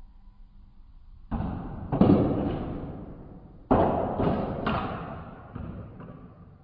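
Garlando foosball table in play: a run of loud knocks as the plastic men strike the ball and it hits the table, the first about a second in, each trailing off over a second or so.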